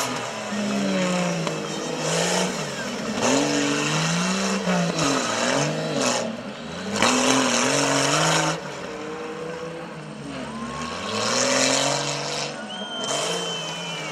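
A modified off-road 4x4's engine revs up and down again and again as it works over rough, rocky ground, with stretches of loud noise laid over it.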